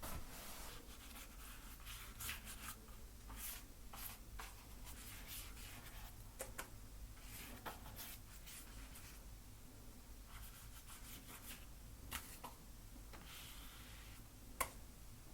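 Paint being worked onto a canvas: a run of short, faint, scratchy strokes, with one sharp click near the end.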